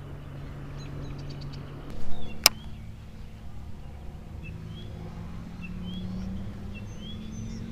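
Baitcasting reel (Mach Speed Spool) being cranked on a retrieve, its gears giving a steady low whir that slowly rises in pitch in the second half. There is one sharp click about two and a half seconds in.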